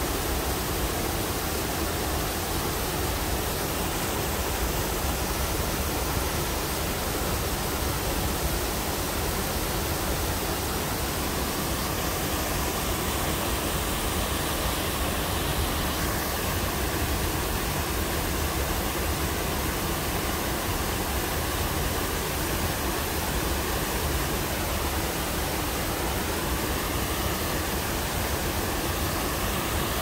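Jiktang Falls, a wide curtain waterfall partly iced over, pouring into its plunge pool: a steady, dense rush of falling water that does not change.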